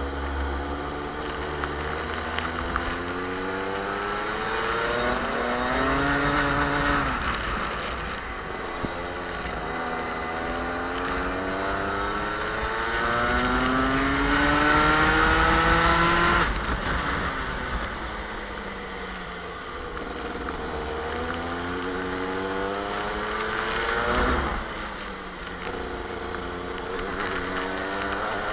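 Onboard sound of a Sodi kart's Rotax two-stroke engine at race pace. The pitch climbs steadily along each straight and drops sharply when the driver brakes for a corner, about three times, at roughly 6, 16 and 24 seconds in.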